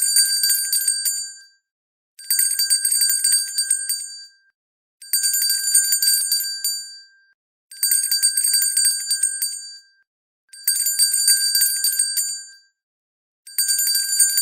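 Hand bell shaken in bursts of rapid clapper strikes, each about two seconds long, with a bright, high ring of steady pitch. It repeats about every three seconds, with silent gaps between.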